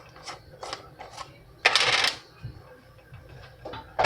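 Handling noises from a jar of minced garlic: a few light clicks and taps, with one loud, half-second scraping rush a little under two seconds in.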